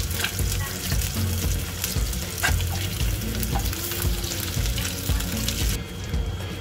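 Fish burger patties sizzling in oil in a nonstick frying pan, with a wooden spatula scraping and tapping against the pan as they are turned. The sizzle cuts off near the end.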